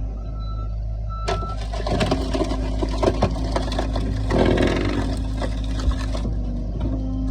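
Skid steer engine running steadily under the log splitter attachment, with scattered knocks and clatter from about a second in and a louder rough burst of noise a little after four seconds.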